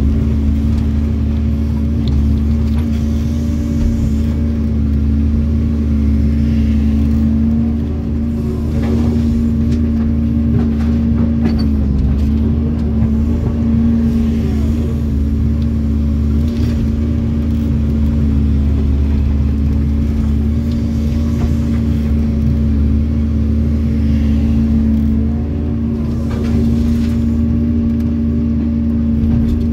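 Doosan excavator's diesel engine running steadily under working load, heard from inside the cab as the boom and bucket dig and swing. The engine note sags briefly twice as the hydraulics take load.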